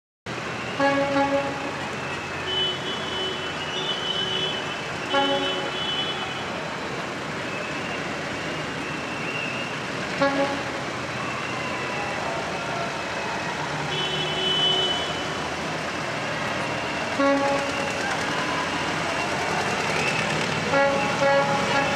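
Vintage tractors and other vehicles running steadily in a street parade, with horns tooting again and again in short blasts, some in quick repeated beeps.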